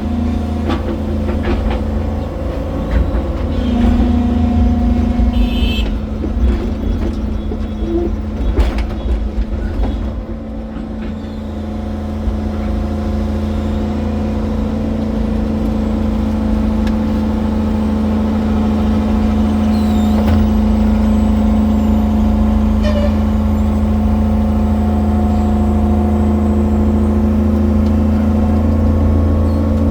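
Excavator's diesel engine running steadily, with a string of clanks and knocks for the first ten seconds or so, then an even hum.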